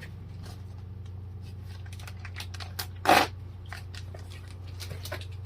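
Packets of Cerakote oxidation remover wipes being handled, with crinkling and small clicks and one louder rustle about three seconds in. A steady low hum runs underneath.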